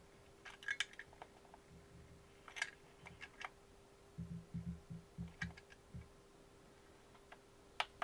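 Plastic clicks and clatter from a Radiomaster Zorro RC transmitter's sticks and self-centering sliders being pushed to their ends and released during calibration. About four seconds in comes a quick run of soft low knocks. A faint steady hum lies underneath.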